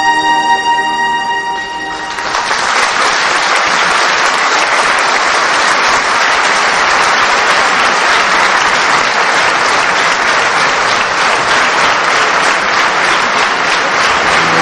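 Dance music ends about two seconds in, and a large audience applauds steadily through the rest.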